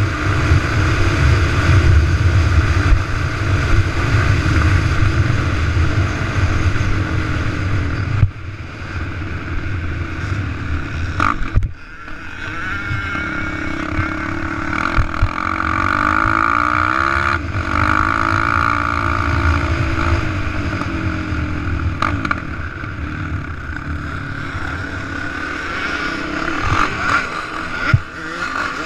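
Sport quad's engine under hard throttle, revving up and easing off in pitch as it is ridden over a dirt track, with a few brief drops when the throttle is let off. Wind rushes over the microphone underneath.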